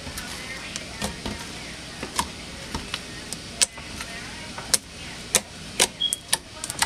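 Freshly kneaded slime made with contact solution being stretched and squeezed by hand, giving irregular sharp clicks and pops.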